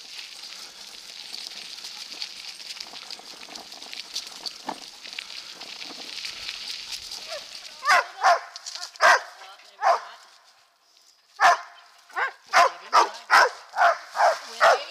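Steady hiss of the bike's tyres on the dirt trail for about the first half. Then, with the bike stopped, Chinook dogs in harness bark in short sharp barks. After a brief pause the barks come faster, about two a second.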